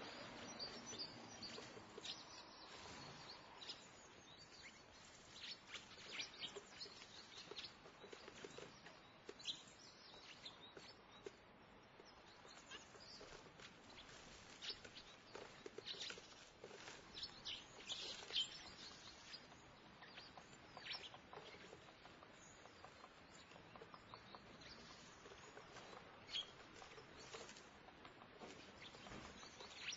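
Faint ambience of small birds chirping at a feeder in short, scattered calls, a cluster of them around the middle, over a steady low background haze of a small town.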